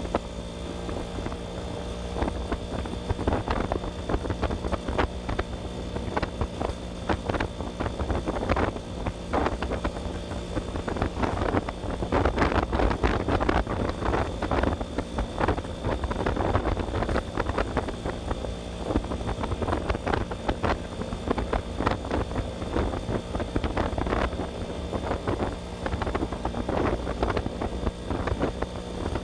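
Kawasaki HD3 125cc two-stroke single-cylinder motorcycle engine running steadily while riding at cruising speed, with heavy wind buffeting on the microphone.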